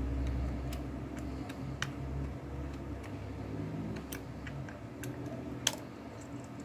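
A few scattered light clicks and taps of small objects being handled, one sharper click near the end, over a low steady hum.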